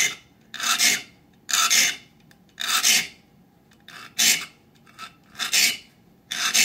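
Small three-cornered saw file sharpening the tiny teeth of a 22-PPI handsaw, one short stroke through each gullet. About seven to nine short file strokes come roughly one a second, with brief pauses between and a few fainter than the rest.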